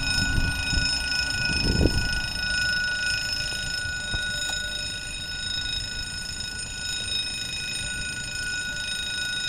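Level-crossing warning bell ringing steadily, signalling an approaching train, with a few low rumbles in the first two seconds.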